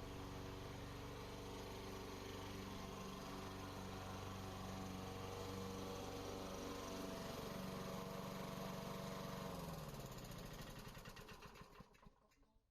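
Lawn mower engine running steadily, then shut off: about ten seconds in, its pitch falls and the firing slows to separate beats as it winds down to a stop.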